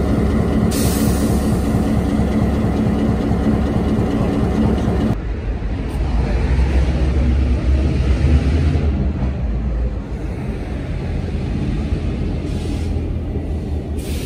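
CN diesel freight locomotives running as they pass beneath a bridge, a steady engine drone. About five seconds in it cuts abruptly to a deeper, lower rumble of another diesel locomotive approaching.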